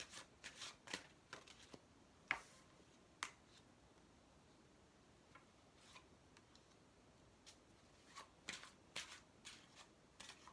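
Tarot cards being shuffled by hand: soft, scattered snaps and taps of the cards, bunched in two spells with a quiet stretch between, one sharper snap a couple of seconds in.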